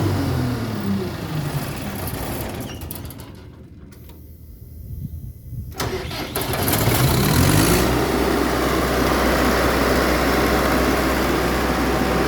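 Perkins diesel engine winding down, falling in pitch and going quieter over the first couple of seconds. About six seconds in it starts up again, rising in pitch, then settles into steady running.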